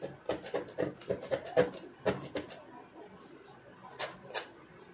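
A steel blade scraping across freshly reflowed solder balls on a reballing stencil to level them, in a quick run of short scrapes and clicks over the first two and a half seconds, then two more strokes about four seconds in.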